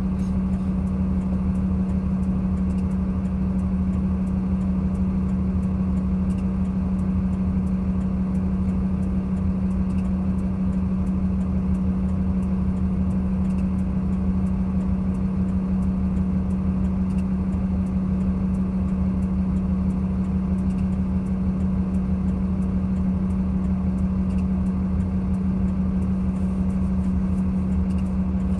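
Vehicle engine idling with a steady, unchanging hum while stopped in heavy traffic.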